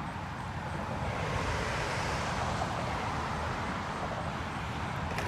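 Steady low rumble of wind buffeting the microphone, with a constant hiss of open-air noise.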